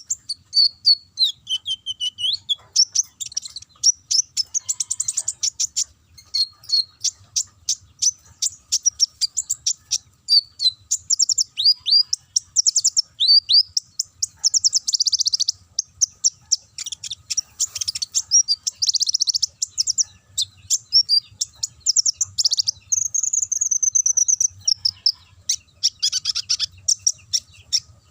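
Olive-backed sunbird (kolibri ninja) singing in full, excited song: a non-stop stream of high, thin chirps, fast trills and short rising and falling whistles.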